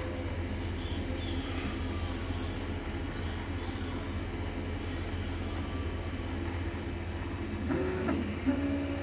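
Prusa MK3S 3D printer running, a steady hum of its fans and stepper motors, with a short whine near the end.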